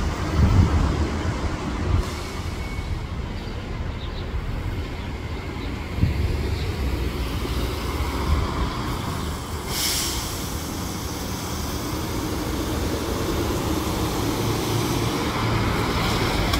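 Transit bus driving slowly past through city traffic, its engine rumbling steadily, with a short burst of air hiss about ten seconds in.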